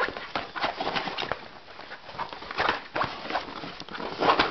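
A stiff plastic-coated Harrods shopper bag being handled and folded open, its plastic sides crinkling with irregular clicks and taps.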